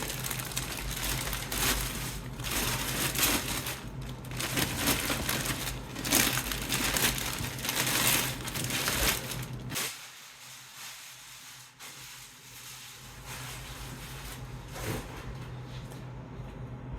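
Protective plastic film being peeled off a new PC case and crinkled, a dense crackling for about ten seconds that then dies down to a few quieter rustles.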